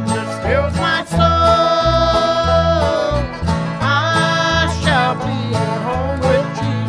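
Bluegrass gospel band playing live: electric bass walking under banjo and guitar, with voices singing long held, gliding notes.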